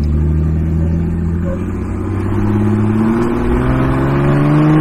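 Jeep Wrangler TJ's engine accelerating in gear, its pitch climbing steadily as the revs build, heard from inside the cabin. The 32RH automatic is held in the gear by a manual valve body and waits to be shifted by hand.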